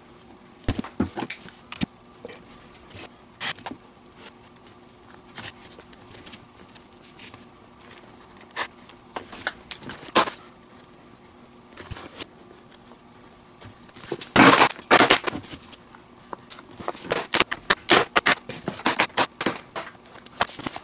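Leather lace pulled through the lace holes of a leather baseball glove as it is relaced, with the glove handled and turned: scattered scrapes, rubs and small clicks of leather, busiest in two clusters in the second half.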